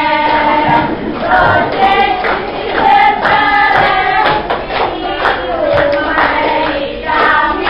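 A group of young women singing a song together, with held notes.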